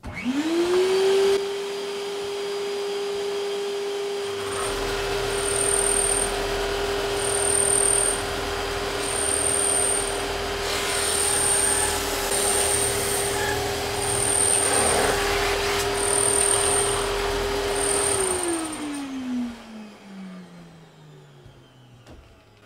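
Sander thicknesser (drum sander) motor starting up, its whine rising to speed within about a second and then running steadily. From about four seconds in, a lower rumble joins as the ash bow lamination on its tapered sledge feeds through and is sanded down towards its finished taper. Near the end the machine is switched off and winds down, the whine falling steadily in pitch.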